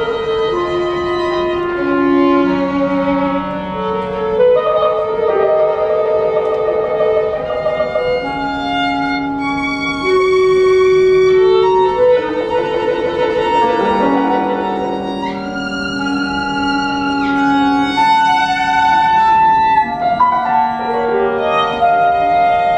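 Live chamber quartet of violin, cello, clarinet and piano playing a contemporary classical piece, mostly long held notes that overlap and shift in pitch.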